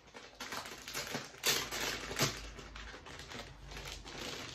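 Clear plastic packaging crinkling and rustling as it is pulled off a pair of oven gloves by hand, an irregular run of crackles with two louder ones near the middle.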